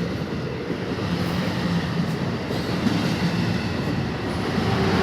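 Passenger train running along the rails, a steady rumble with a faint on-and-off hum.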